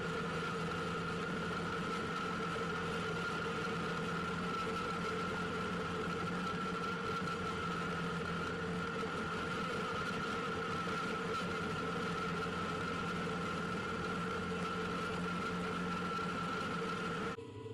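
Farmall 560 tractor engine running at a steady speed, driving a John Deere 34 forage harvester while chopping silage. It makes an even drone with fixed tones and drops away near the end.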